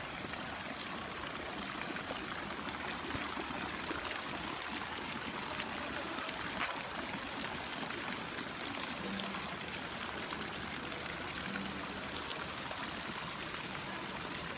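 Pool fountain jets splashing steadily into the pool water, with two brief sharp clicks in the first half.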